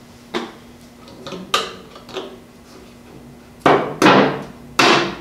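Knocks and clunks of hard objects being handled and set down, about six in all, with the three loudest near the end.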